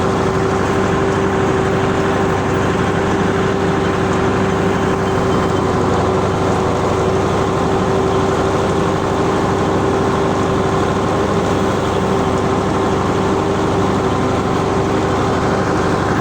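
T-150K tractor's diesel engine running steadily, with a constant whine over the engine noise.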